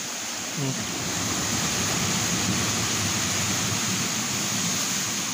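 Large waves breaking and washing against a rocky shore: a steady rush of surf.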